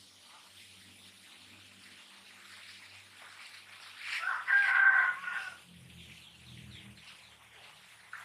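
A rooster crows once, about four seconds in, lasting a second and a half over faint background noise.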